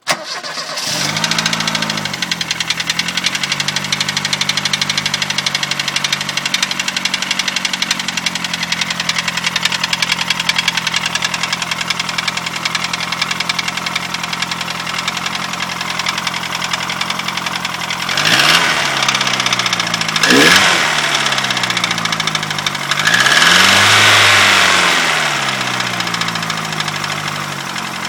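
Ford Fiesta RS Turbo's 1.6-litre turbocharged four-cylinder engine catching and settling to an idle with a steady, regular knock: a failing, "dead" engine. It is revved briefly twice late on, then held up for a couple of seconds, and the revs fall back to the knocking idle.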